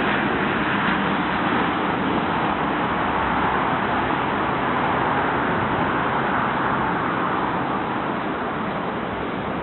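Jet noise from a Boeing 747-400's four turbofan engines as the airliner comes in to land: a steady rushing roar that slowly fades over the last few seconds.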